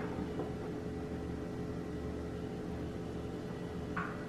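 Steady low background hum with a faint constant tone, and one brief soft sound about four seconds in.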